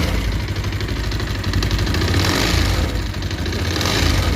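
Bajaj Pulsar 220F BS6 single-cylinder engine idling with a fast ticking rattle over the engine note. This is the bad engine sound the mechanic puts down to a worn timing chain whose tensioner has lost its pressure.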